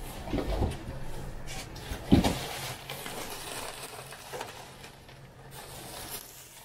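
Handling of a large cardboard box and bubble wrap during unpacking: a couple of dull thuds, the loudest about two seconds in, then plastic bubble wrap rustling as a wrapped part is lifted out.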